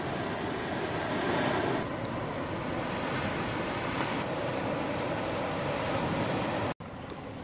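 Ocean surf and wind on the microphone: a steady rushing noise that shifts slightly a couple of times and cuts out for an instant near the end.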